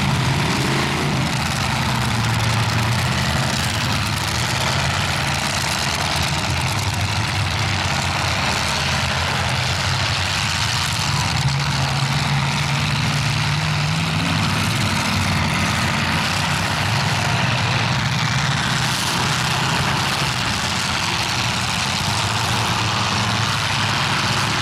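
Engines of welded demolition derby cars running together in a steady wash of noise, one rising in pitch as it revs partway through.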